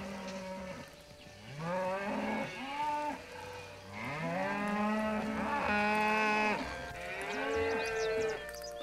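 Cows mooing, several calls one after another, each rising and falling in pitch, the longest lasting about two seconds in the middle.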